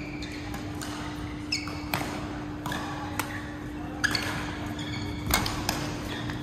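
Badminton rackets striking a shuttlecock in a fast rally: several sharp hits, with short squeaks of shoes on the court floor between them, in a large echoing hall. A steady low hum runs underneath.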